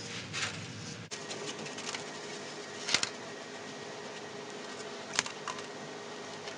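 Light clicks and ticks of hand handling as the thin snare wire is fed through the videoscope's insertion tube: a cluster of small ticks about a second in, a sharper click about three seconds in and another about five seconds in, over a faint steady hum.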